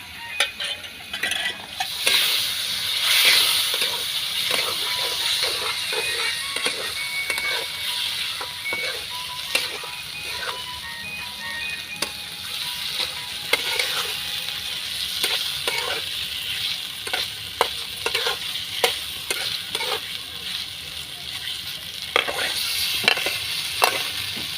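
Chicken pieces sizzling as they fry in a pan, with frequent scraping strokes and clinks of a spatula stirring them against the metal.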